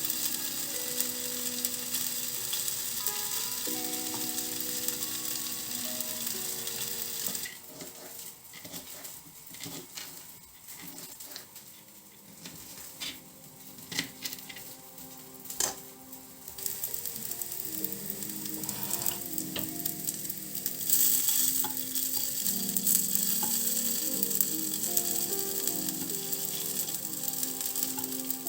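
Food sizzling as it fries in a pan. Partway through, the sizzle drops away for several seconds and a few clicks and taps of utensils are heard. The sizzling then returns, briefly louder.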